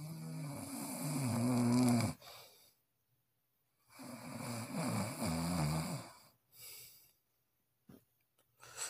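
A man snoring: two long snores of about two seconds each, with a pause of about two seconds between them.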